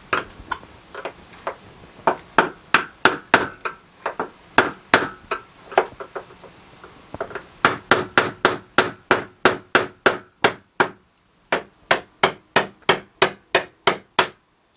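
Hammer blows on a steel van roof support beam, knocking it loose where it is still held by spot welds. Rapid runs of sharp strikes, about three a second, with two short pauses, each strike ringing briefly.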